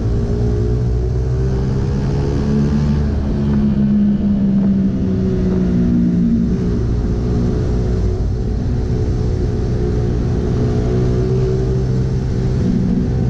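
A Yamaha Vega Force Fi 115 underbone motorcycle's single-cylinder four-stroke engine running at road speed. Its note shifts up and down a little a few times with the throttle, over a steady rush of wind and road noise.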